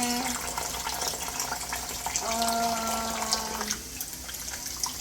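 Water running from a kitchen tap into a sink, steady, with a held, even-pitched tone lasting over a second about two seconds in.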